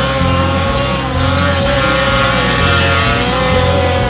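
Snowmobile engines running at high revs while skimming across open water, their pitch wavering as they pass, over background music with a steady repeating bass line.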